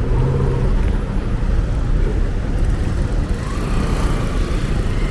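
Street traffic: cars passing with a steady low rumble.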